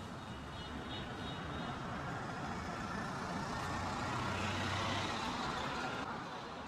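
Street traffic noise: a motor vehicle's engine runs and passes, growing louder toward the middle and then easing off.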